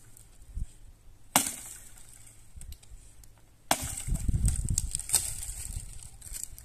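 Firewood being chopped: two sharp blows a little over two seconds apart, the second followed by about a second of splintering and crackling as the wood breaks apart.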